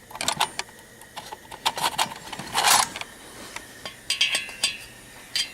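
Steel drill bits and small metal tools clinking and rattling as they are picked through and handled, with a short scrape about two and a half seconds in and a brief metallic ring a little past four seconds.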